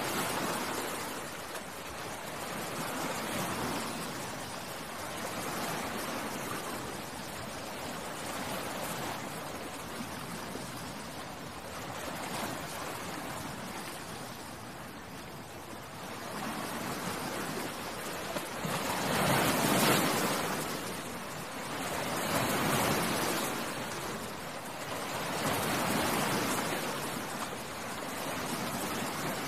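Sea waves washing ashore, the surf swelling and falling back about every three seconds, with the biggest wave about two-thirds of the way through.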